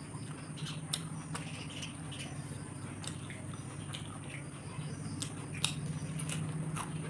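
Mouth sounds of eating by hand: chewing and wet lip smacks, heard as scattered short clicks, one sharper near the end. A steady low hum runs underneath.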